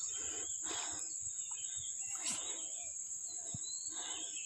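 Steady, high-pitched drone of insects, with faint bird chirps and a few brief soft rustling noises.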